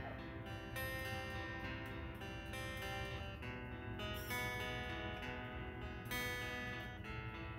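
Background music: a strummed acoustic guitar playing a gentle, changing chord pattern.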